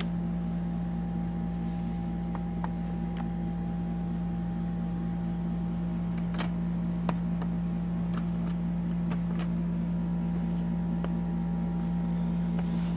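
Steady low electrical or mechanical hum, like a fan or appliance running, with a few faint light clicks around the middle.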